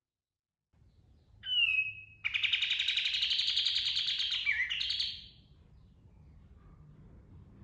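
Kapas tembak (katem) bird singing: a short, sharp whistled note, then a loud, very rapid rolling trill lasting about three seconds that drops in pitch just before it stops.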